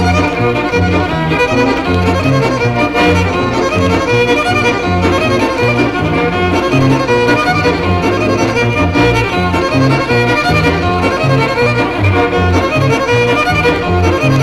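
Old-time folk dance band playing a reel, the fiddle carrying the tune over a steady bass line.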